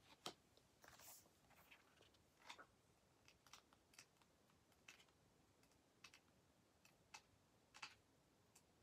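Faint handling noises: about a dozen small, irregular clicks and ticks, with a brief light rustle about a second in, over a quiet room.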